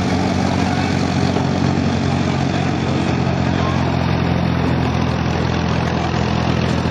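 Tractor engine idling steadily, a low even hum.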